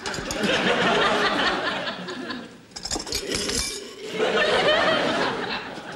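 Studio audience laughing in two waves, the second starting about four seconds in.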